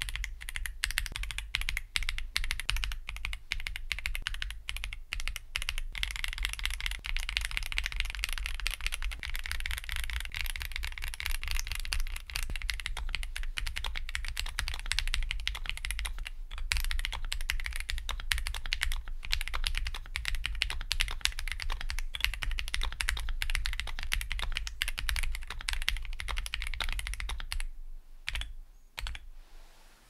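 Fast, continuous typing on an Akko ACR Pro 75 gasket-mount keyboard with an aluminium plate and lubed Akko CS Jelly Black linear switches. The keystrokes thin out and stop near the end. The owner judges this configuration worse in sound, with some stabilizer rattle that he puts down to the plate-mount stabilizer housings moving in the aluminium plate.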